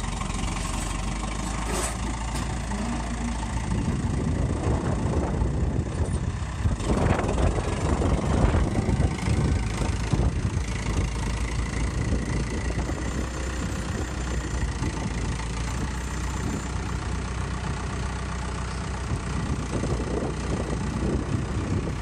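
Farm tractor engine running steadily close by. It gets louder and rougher for several seconds around the middle.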